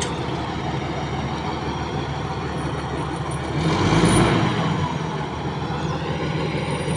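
Komatsu bulldozer's diesel engine running steadily as the machine climbs onto a lowboy trailer, swelling briefly about halfway through.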